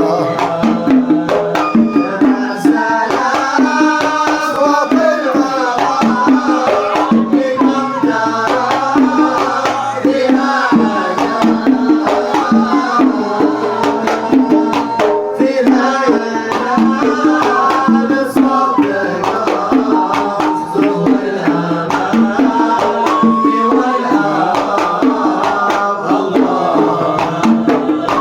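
Kuwaiti sawt music: a busy melodic line over a steady hand-drum rhythm.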